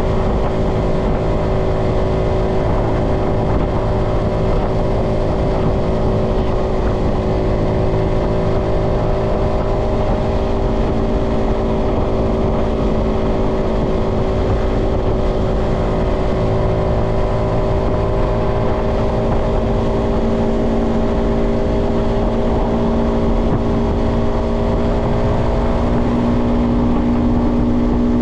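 Yamaha XSR125's single-cylinder four-stroke engine running at a steady cruising speed, with wind and road rumble underneath. Its pitch holds steady and edges up slightly near the end.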